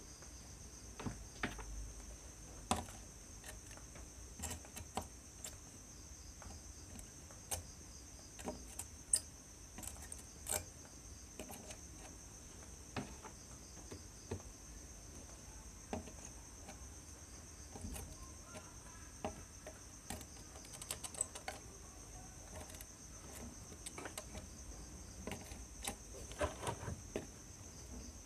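Crickets chirping steadily and faintly, with scattered light clicks and taps from handling a circuit board during soldering.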